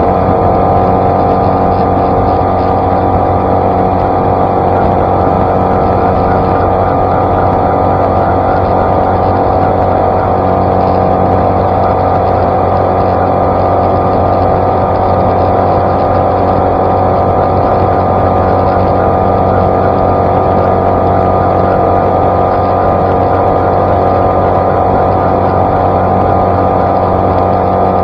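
Outboard motor on a 16-foot flats skiff running steadily at full throttle, its pitch holding level, with water rushing along the hull as the boat planes at top speed.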